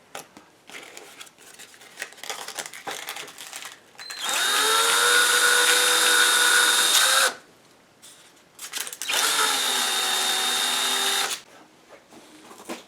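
Light handling clicks, then an electric drill spinning up and running steadily twice, for about three seconds and then about two seconds, with a short pause between.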